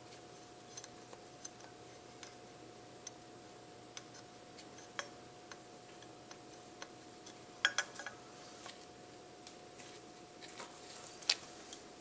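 Faint scattered clicks and light taps of hands and a tool working the old O-ring out of a motorcycle water pump housing, with a sharper cluster of clicks about eight seconds in and one sharp click near the end.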